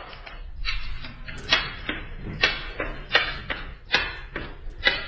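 Short, sharp taps and clicks about twice a second: small rings being flicked off a stick at paper cups, which knock and topple over.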